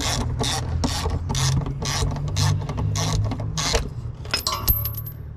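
Hand socket ratchet clicking in steady strokes, about two a second, backing out a bolt on a car's shifter bushing bracket; near the end the strokes give way to a few lighter clicks and a faint high metallic ring.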